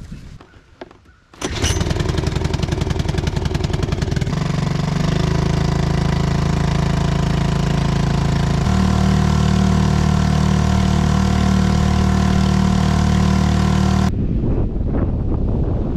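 Honda four-stroke outboard motor starting about a second and a half in, running unevenly for a few seconds as it catches, then settling into an even run that rises in pitch twice as it is throttled up. About two seconds before the end the engine sound stops abruptly and wind rushing on the microphone takes over.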